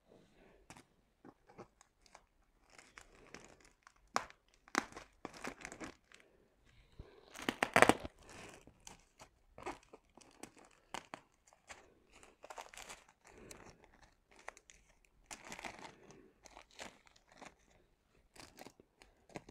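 Clear plastic packaging of a diamond-painting kit crinkling and rustling as it is handled, in short irregular bursts, loudest about eight seconds in.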